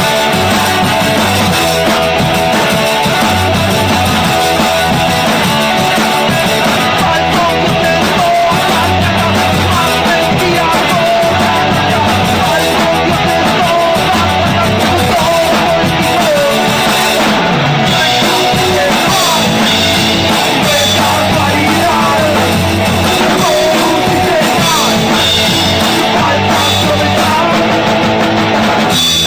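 Rock music with guitar, loud and steady throughout.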